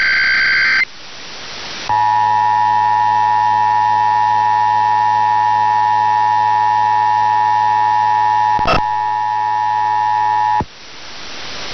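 Emergency Alert System tones: the end of a SAME header data burst (rapid warbling digital tones), a second of hiss, then the EAS two-tone attention signal (853 and 960 Hz together) sounding steadily for about nine seconds, with one brief click near the end of it. It cuts off into hiss just before the alert message is read.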